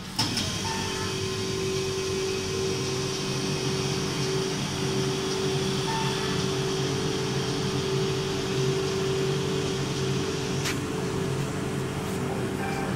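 Soft-serve ice cream machine running while it dispenses: a steady motor and compressor hum with a droning tone, which comes up just as the draw handle is pulled. A single sharp click comes about eleven seconds in.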